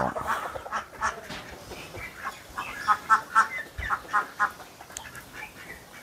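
A flock of ducks quacking in short calls, with a quick run of calls about three seconds in.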